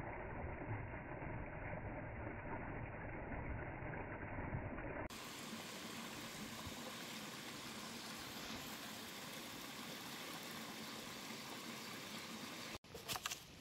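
Small mountain stream rushing and splashing over mossy rocks, a steady rush of water. Its tone changes abruptly about five seconds in, and a few brief clicks come near the end.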